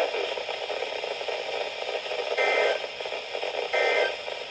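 Weather radio receiver hissing with static, then two short warbling data bursts of the EAS/SAME end-of-message code about a second apart, starting about two and a half seconds in. The bursts mark the close of the broadcast alert.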